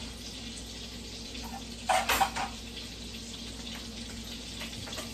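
Italian sausages frying in a skillet, a steady low sizzle, with a brief loud clatter about two seconds in.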